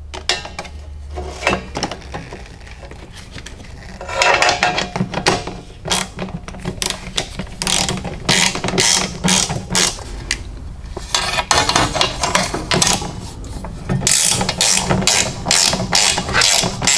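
Hand ratchet wrench clicking in quick runs with short pauses as bolts are turned. The clicking grows louder about four seconds in.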